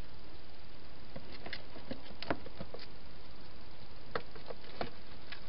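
European hedgehog eating from a dish: about a dozen irregular clicks and crunches, the loudest a little past two seconds in, over a steady hiss.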